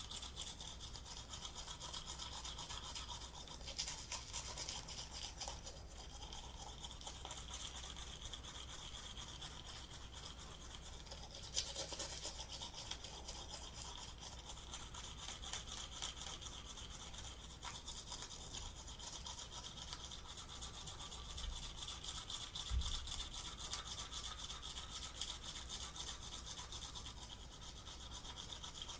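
A toothbrush scrubbing teeth with rapid, continuous back-and-forth strokes: a wet, hissy brushing sound that carries on without pause, a little louder about four seconds and twelve seconds in.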